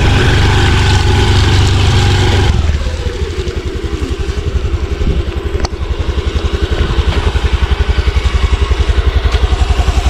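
Small motor scooter's engine running, louder for the first two and a half seconds and then settling into a steady, fast, even pulsing idle close by.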